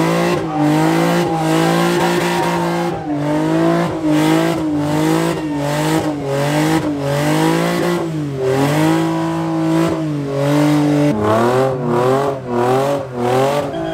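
A car doing a smoky burnout or donuts: its engine held at high revs and its tyres squealing, the pitch wavering up and down as it spins, with a few brief dips where the revs drop.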